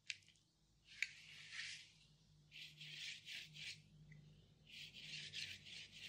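Paintbrush scrubbing paint onto a textured paper-and-thread collage, heard as three spells of quiet, scratchy back-and-forth strokes, with a light click or two in the first second.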